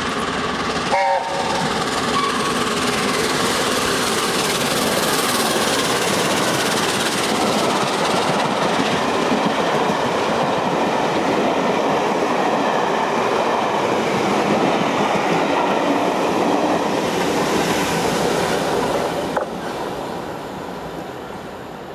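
Peppercorn A1 Pacific steam locomotive 60163 Tornado passing through with its train of coaches. Its whistle ends about a second in, then the train makes a loud, steady rush of noise as it goes by, fading from about nineteen seconds as the last coach clears.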